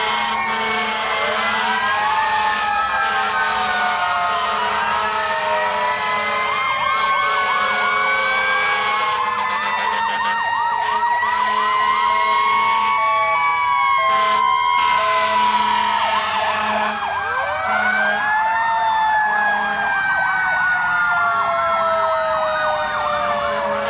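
Several fire engine sirens wailing at once, their long rising and falling glides overlapping, with a fast warbling stretch in the middle. Steady lower tones come and go underneath.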